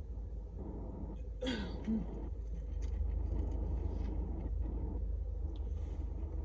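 Eating and mouth sounds over a steady low rumble, with one short throaty sound about a second and a half in that falls in pitch.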